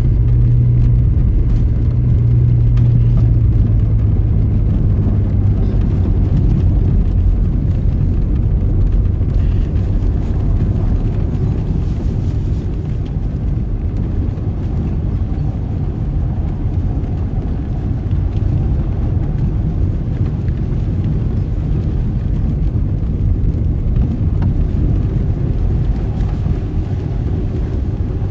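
Alfa Romeo Spider V6 heard from inside the cabin, running slowly down a snowy track on snow chains: a steady low rumble of engine and tyre noise. A low engine hum is strongest for the first few seconds, then eases off.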